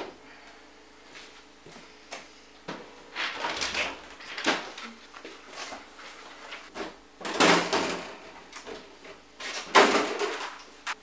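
Several short scrapes and knocks of household objects being lifted, set down and slid across a floor, the loudest near the end.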